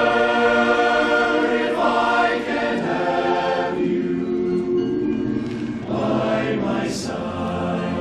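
Barbershop chorus singing a cappella: men's voices holding close-harmony chords that change every second or two.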